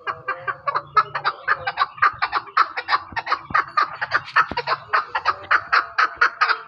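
Chukar partridge calling: a fast, even run of short clucking notes, about five a second, throughout.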